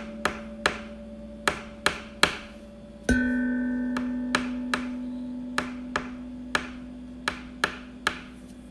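Sparse instrumental music: a single sustained plucked note, with a new, slightly higher note struck about three seconds in, under a steady ticking at about two or three ticks a second.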